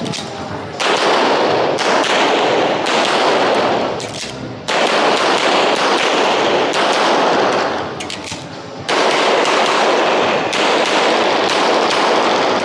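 Rapid, sustained gunfire in three long stretches of about three and a half seconds each, every stretch starting and stopping abruptly.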